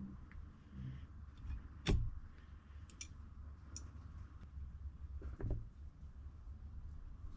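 Handling noises from carburetor parts and tools on a workbench: a sharp knock about two seconds in and another just past five seconds, with scattered light ticks over a low steady hum.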